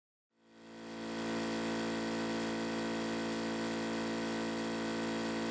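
Electric air compressor running with a steady, even hum that fades in about half a second in.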